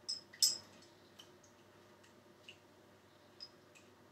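A fork clinking and tapping against a saucepan while mashing soft cooked strawberries. Two sharper clinks come near the start, then lighter, irregular taps.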